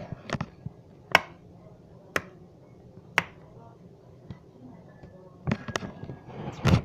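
Three sharp taps about a second apart, then a quick cluster of clicks and knocks near the end.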